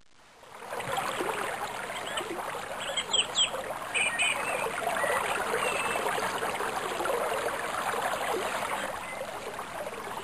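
Flowing water, a steady rush like a stream, fading in during the first second. A few short high chirps sound about three and four seconds in.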